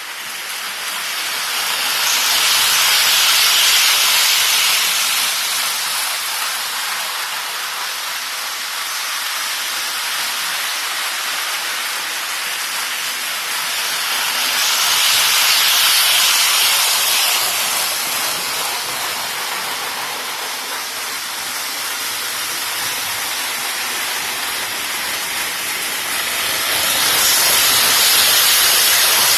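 Model trains running on a home layout: a steady rolling hiss of wheels on track and small motors, swelling three times, about every twelve seconds, as a train passes close by on its loop.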